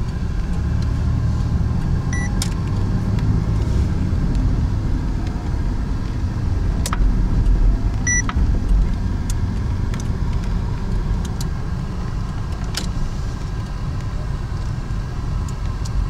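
Car driving, heard from inside the cabin: a steady low rumble of road and engine noise, with a few sharp clicks and rattles over bumps. There are two short high beeps, about two seconds and eight seconds in.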